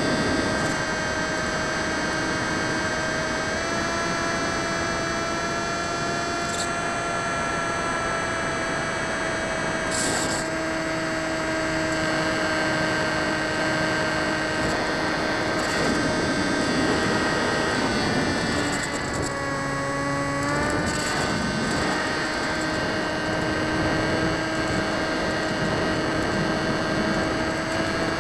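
Electric motor and propeller of an RC Drifter ultralight model plane, heard through its onboard camera in flight: a steady whine over rushing air. The pitch dips about 19 seconds in as the throttle is eased, then climbs back.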